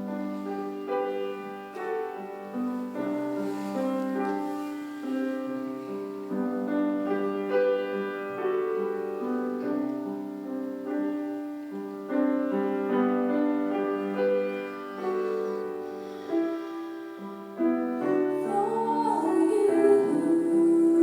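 Piano playing a slow passage of held notes and chords. A singing voice seems to come in near the end.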